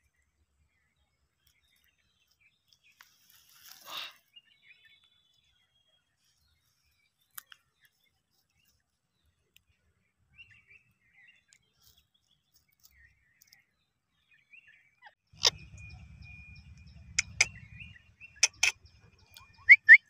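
Indian ringneck parakeet giving a few short, sharp, shrill calls in the last five seconds, with a thin steady whistle among them; before that it is mostly quiet.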